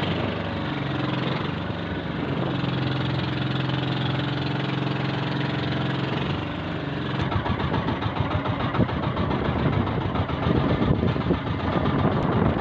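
Motor of a bangka outrigger boat running steadily. About seven seconds in it turns rougher, louder and more uneven.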